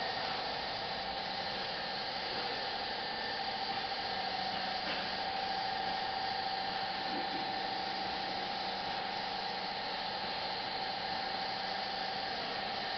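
Tornado Tiger 52.40 airless paint sprayer spraying epoxy floor paint: a steady hiss with a steady humming tone beneath it.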